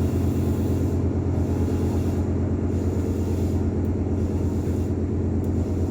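Steady low mechanical hum inside a Meitetsu 6000 series train car, even in level throughout, from the car's under-floor equipment.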